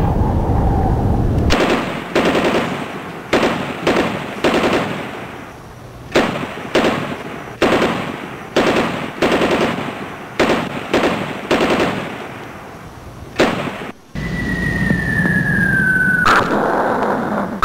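Recorded First World War battle sound effects: repeated bursts of machine-gun and rifle fire, each ringing out briefly. Near the end a low rumble comes in and an incoming shell whistles down in pitch and ends in a sharp blast.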